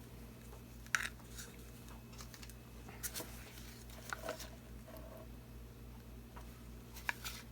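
A few light clicks and taps of paint cups and containers being handled while acrylic paint is poured, the sharpest about a second in and again near the end, over a low steady hum.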